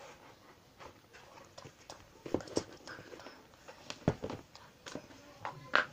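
Handling noise close to the microphone: scattered soft knocks, taps and rustling as someone moves and handles things right beside it, with the sharpest tap near the end.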